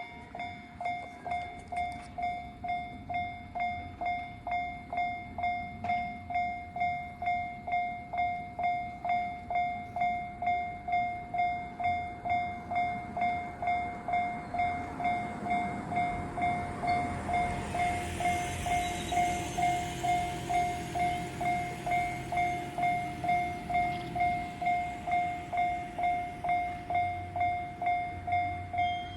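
Japanese level-crossing warning bell ringing steadily in even dings, about one and a half a second. A local train rolls through the crossing: its rumble and wheel noise swell from about halfway in, peak and fade away a few seconds before the end while the bell keeps ringing.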